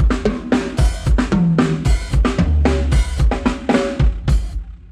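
Drum kit played through a PA during a live-band soundcheck: a rapid run of kick, snare and tom strikes with cymbal wash, stopping shortly before the end.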